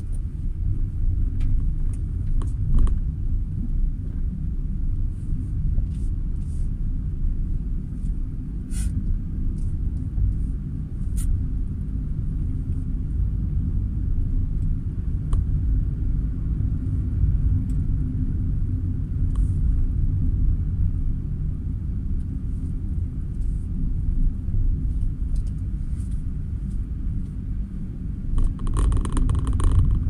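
Car driving along at low speed, heard from inside the cabin: a steady low rumble of engine and road noise with a few faint clicks. Near the end a louder, hissier noise comes in over the rumble.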